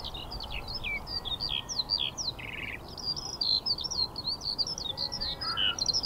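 A songbird singing a fast, unbroken run of short, varied high chirps and trills.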